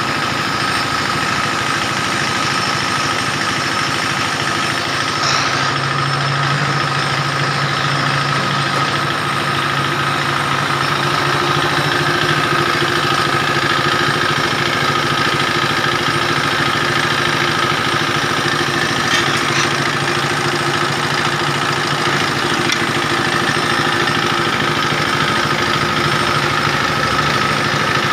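A 10 HP diesel engine running steadily, driving a dowel machine that turns square wooden sticks into 19 mm round broom handles, its cutter heads whirring as the wood is fed through. A couple of light knocks sound partway through.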